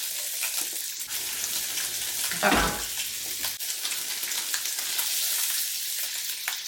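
Meat frying with a steady sizzle and crackle. A brief louder knock comes about two and a half seconds in.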